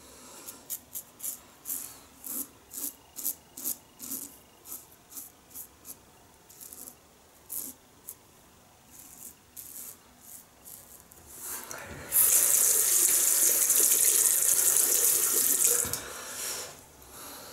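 Vintage 1930s Gillette "New" long-comb double-edge safety razor scraping through lathered stubble in short strokes, about two or three a second. About twelve seconds in, a tap runs loudly into a sink for about four seconds and shuts off suddenly.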